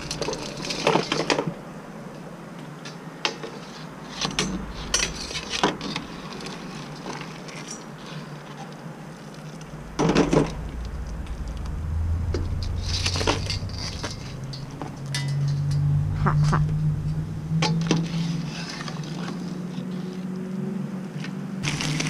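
Metal cookware clinking and knocking: a steel strainer, pot and utensils being handled during a crawfish boil. A steady low hum sets in about twelve seconds in.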